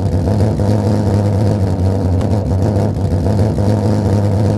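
Alcohol vapour burning in rapid pulses inside a glass jar with a 10 mm hole in its lid, working as a small pulse-jet combustor. It makes a loud, steady, low buzzing drone.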